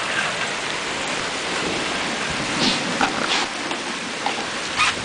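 Heavy rain mixed with hail falling in a steady hiss, with a few sharper knocks about three seconds in and again near the end.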